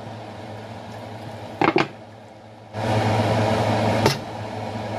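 Steady hum and fan-like noise from a kitchen appliance. It jumps much louder about three seconds in and stays there. A short clatter comes a little before the jump.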